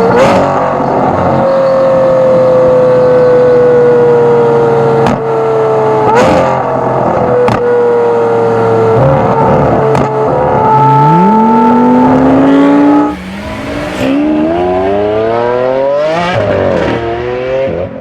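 Lamborghini Aventador SVJ's V12 through a Gintani exhaust, heard close at the tailpipe: a steady, slowly falling engine note with several sharp cracks, then two accelerations with the pitch climbing, cut by a sudden lift-off about thirteen seconds in.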